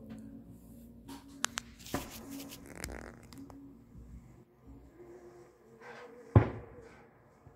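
Aerial fireworks shells bursting at a distance: a few sharp bangs about a second and a half to two seconds in, a crackling stretch after them, and one loud boom a little after six seconds that dies away.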